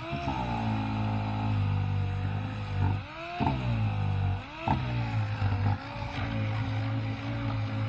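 Electric power sander running against the work, its motor pitch dipping and climbing back twice.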